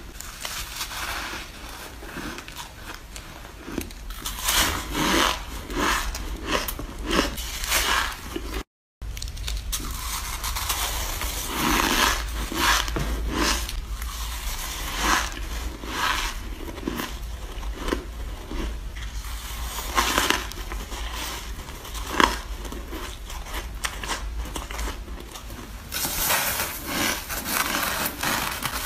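Bites into powdery shaved ice, squeaky and crunchy, in quick irregular bursts one after another. The sound drops out briefly about nine seconds in.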